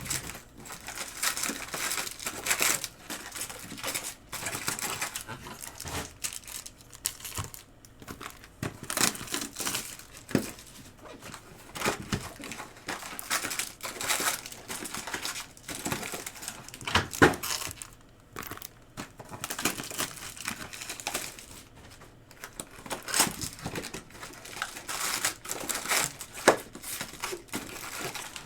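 Foil wrappers of trading-card packs crinkling and tearing as the packs are opened and the cards handled: irregular rustles and sharp snaps.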